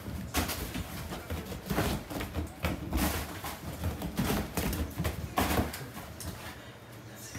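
A dog's paws thudding and scrabbling on leather sofa cushions as it runs and jumps along the sofas, a run of irregular thuds and scuffs that thin out near the end.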